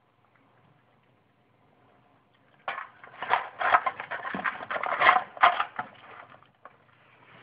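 European badger eating from a food tray: about three seconds of dense crunching and clicking, starting nearly three seconds in after a quiet start.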